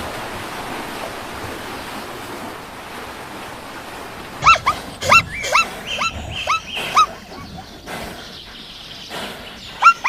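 Steady background hiss for the first half, then a run of short, high animal yelps, about two a second, each rising and falling in pitch, with two more near the end.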